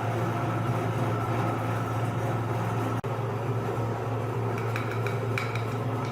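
Electric meat grinder's motor running with a steady hum, with a few light clinks about two-thirds of the way through.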